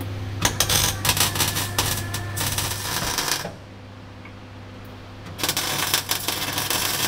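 MIG welder arc crackling in two runs of about three seconds each, with a short pause between, over a steady electrical hum; it is tacking steel flat-bar locating tabs in place.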